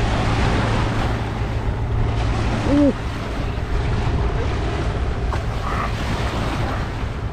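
Wind buffeting the microphone over choppy river water, with small waves lapping steadily. A brief rising-and-falling call-like tone sounds about three seconds in.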